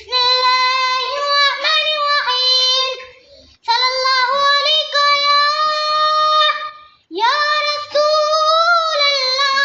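A child's voice reciting the Quran in the melodic tilawat style. It holds long, ornamented notes in three phrases, with a short pause for breath about three seconds in and again about seven seconds in.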